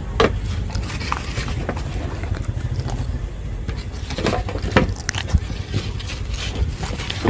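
A dog chewing and eating, with irregular crunches and wet smacks, over a steady low rumble.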